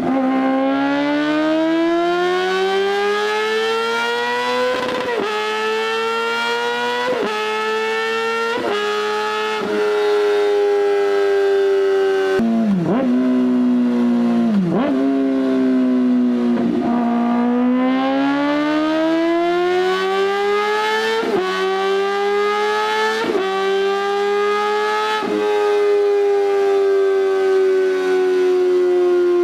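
Kawasaki ZX-4RR's 399 cc inline-four with an SC-Project exhaust at high revs, a high wail that climbs steadily and drops sharply with each upshift, four shifts in the first ten seconds. Its pitch then eases down through a few quick dips, climbs again through three more upshifts, and settles, falling gently near the end.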